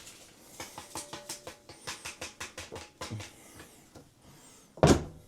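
Powdered washing-machine cleaner being shaken from its container into a front-loader's drum: quick light ticks, about six a second, for a couple of seconds. A loud thump comes near the end.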